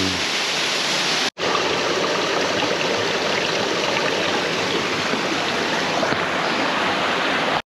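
Steady rushing of flowing water, like a mountain stream, cut off to silence for an instant about a second in before carrying on unchanged.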